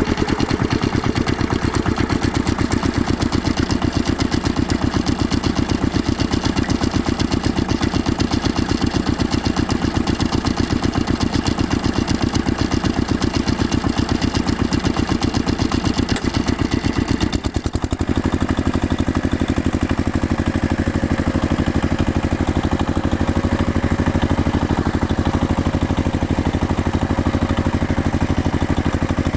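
Heavy machine's engine running steadily with an even, rapid pulsing. About 17 seconds in it dips briefly, then carries on with a slightly changed tone.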